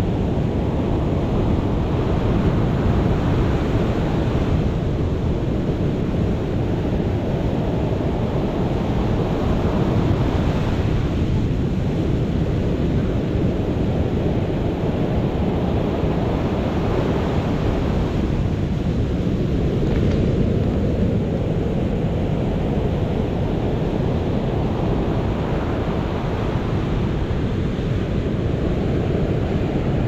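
Storm surf breaking and washing up a sandy shore: a constant low rumble with a surge of foaming hiss every seven or eight seconds as each wave runs in. Wind buffets the microphone.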